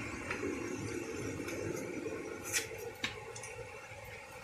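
Steady rushing of a stream's running water, thinning out after about three seconds, with two sharp clicks of something knocking on stones about two and a half and three seconds in.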